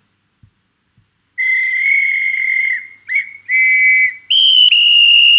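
A person whistling a short run of notes through the lips: after about a second and a half of quiet comes one long note, a short one, then several more, the last ones higher in pitch.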